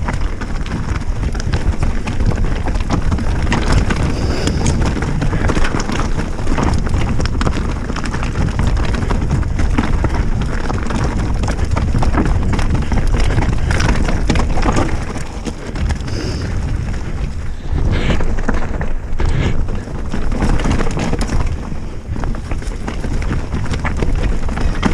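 Specialized Stumpjumper mountain bike descending a rough, stony dirt trail: a constant rumble of wind buffeting the action camera's microphone, with tyres crunching over loose stones and the bike clattering and knocking over bumps, easing briefly a couple of times in the second half.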